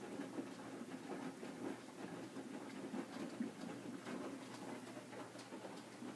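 Hotpoint Aqualtis washing machine in its main wash, the drum turning and tumbling wet laundry with an irregular patter of water sloshing and clothes dropping.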